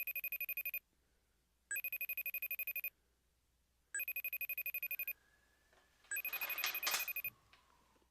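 Phone ringing with an electronic trilling ring. The rings are each about a second long and come about every two seconds, four times in all. A short noisy sound overlaps the fourth ring.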